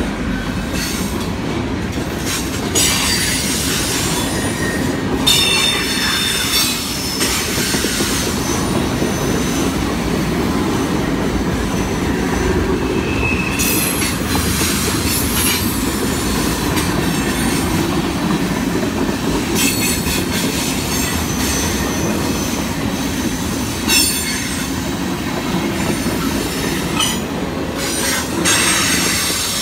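Norfolk Southern freight train cars rolling past with a steady rumble, and high-pitched wheel squeals coming and going every few seconds.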